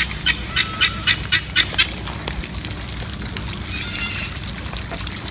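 Guineafowl calling: a rapid run of short, harsh calls, about four a second, that stops about two seconds in, leaving steady background noise.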